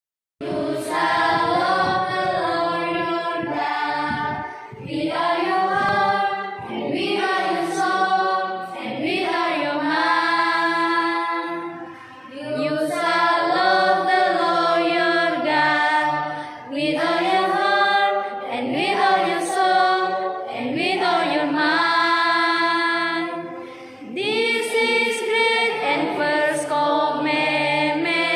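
A small group of teenage students, girls and boys, singing a cappella together in sung phrases separated by brief breaths.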